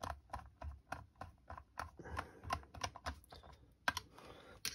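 Light, irregular clicking and tapping, several clicks a second, from hand tools and small metal parts being handled while a scope chassis is fitted.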